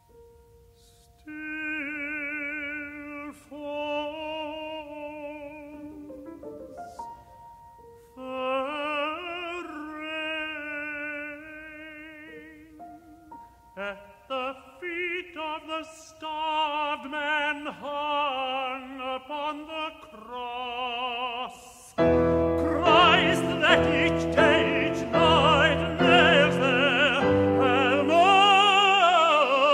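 Tenor singing an English art song with wide vibrato, in phrases over a sparse piano accompaniment. About 22 seconds in, the piano enters loudly with repeated full chords and the voice sings out impassioned and loud.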